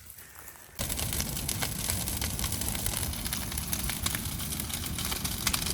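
Large brush pile burning, with sharp crackles and pops over a steady low rumble; it starts abruptly about a second in.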